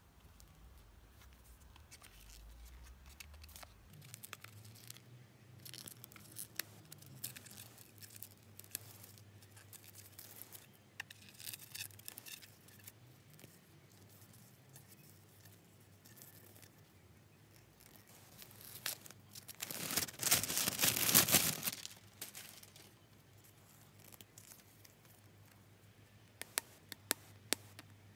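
Wrapping being torn and crinkled off a rolled poster, with scattered rustles and one louder tearing stretch of about two seconds roughly two-thirds of the way in. A few sharp clicks follow near the end as the bare rolled poster is handled.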